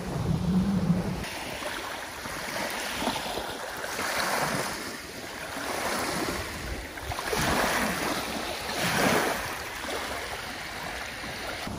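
Small wind-driven waves washing onto a lake shore, the wash swelling and fading every second or two. Wind buffets the microphone at first.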